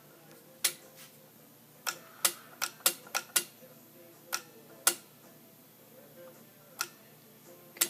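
Sharp mechanical clicks, about eleven at uneven spacing and bunched together near the middle, from a switch box's toggle switches and the drawer-latch solenoid snapping in and out.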